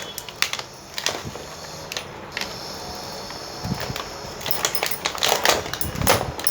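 Toy-set packaging being opened and handled: irregular clicks, crackles and rustles, busier near the end.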